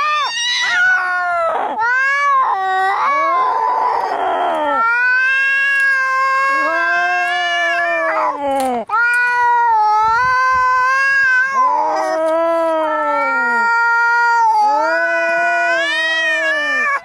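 Angry domestic cats caterwauling in a fight standoff: long, drawn-out yowls that waver up and down in pitch, one after another, with a harsh hiss about four seconds in.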